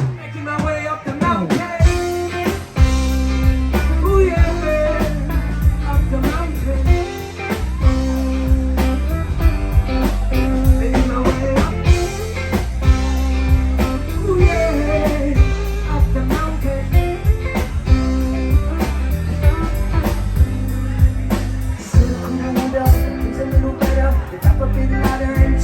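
Live band playing a blues-rock song, with guitar over bass and a steady drum beat. The band comes back in right at the start after a brief drop in level.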